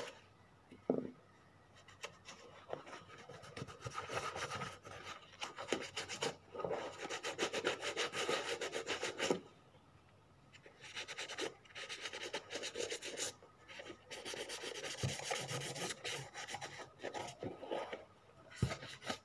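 Leather oil being rubbed by hand into a brown leather shoe: fast scrubbing strokes come in several spells, separated by short pauses.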